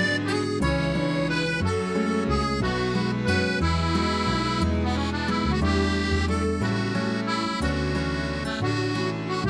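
Instrumental background music: a melody of held notes over a bass line that changes note every half second or so.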